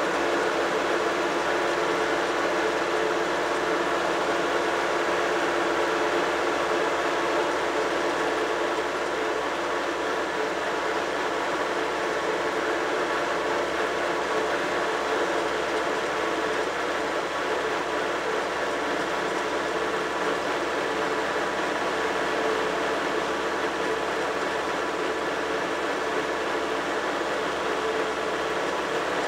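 Tractor engine running steadily under way at road speed, heard close up from on board, an even drone with its exhaust note and road noise.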